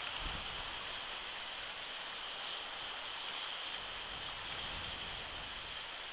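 Steady outdoor hiss from the nest-cam microphone, with a few low rumbles of wind on it. No eagle calls.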